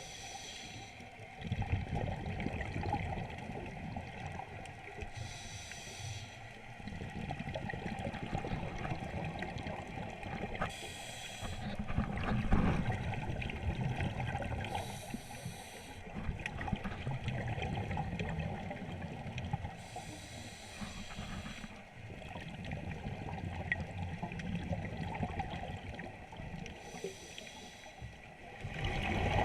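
Scuba diver breathing through a regulator underwater: a hiss about every five seconds as each breath is drawn, with bubbling, gurgling exhalations in between.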